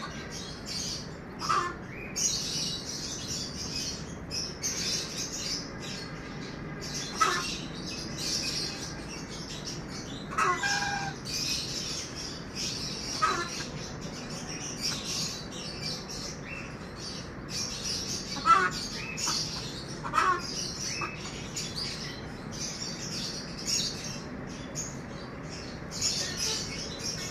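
Small birds chirping continuously in the background, with short calls from the yard's poultry (a domestic duck and chickens) about every few seconds, seven in all.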